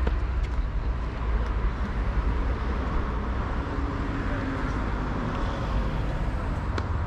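Steady low rumble and hiss of outdoor ambience, with a tennis racket striking a ball once near the end and a few fainter ticks of distant play.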